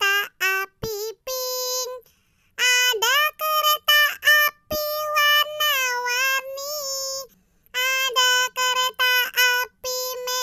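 High-pitched, child-like singing voice singing an Indonesian children's song without accompaniment. It sings short held notes and phrases, pausing briefly twice.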